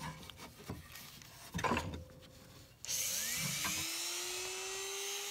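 Handheld rotary tool switched on about three seconds in: a whine that rises as the motor spins up, then runs at a steady pitch. Before that come faint clicks of handling the tool's collet.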